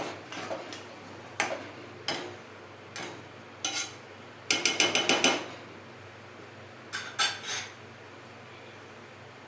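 Metal spoon stirring and knocking in a metal kadhai of thick gram-flour curry. About halfway through there is a quick run of ringing metal taps, and three more clanks follow a couple of seconds later.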